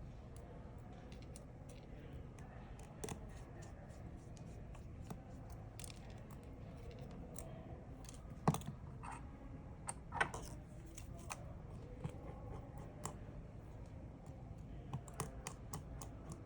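Scattered small clicks and scrapes of hand tools handling small phone parts, with two sharper clicks a little past halfway, over a low steady hum.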